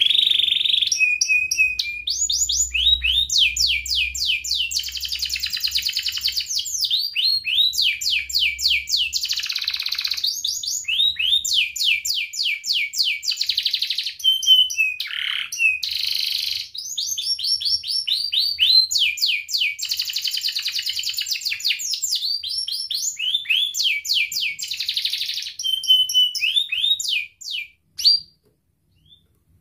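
Domestic canary singing a long, high-pitched song of fast trills, runs of quickly repeated sweeping notes that change from phrase to phrase, and breaking off near the end.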